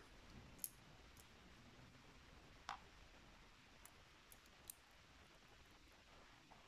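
Near silence broken by a few faint, sharp clicks: metal tweezers tapping against the housing of a Regal cylinder lock while its small driver pins are picked out.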